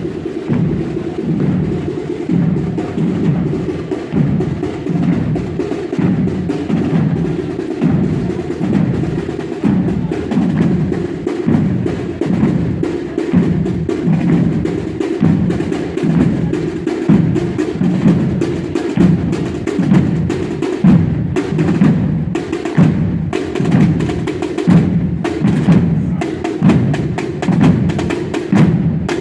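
Procession drums beating a steady, repeating march rhythm together, with many hits and the sharp clack of the sticks.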